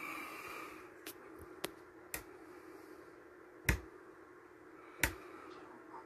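A 12-volt rocker light switch being flipped several times: six short, sharp clicks at uneven gaps, the loudest two about 3.5 and 5 seconds in, over a faint steady low hum.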